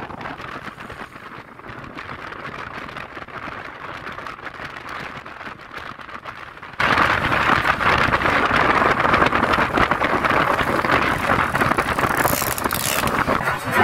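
Riding noise on a Yamaha Lexi scooter: wind and road noise over the engine, a steady rushing sound that turns abruptly much louder about seven seconds in.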